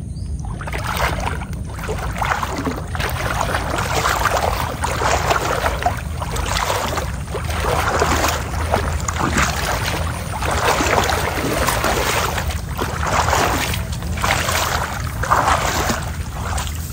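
A person wading knee-deep through muddy floodwater, the water splashing and sloshing around the legs with each stride, about one surge every second and a half. The splashing stops near the end as she steps out onto the grassy bank.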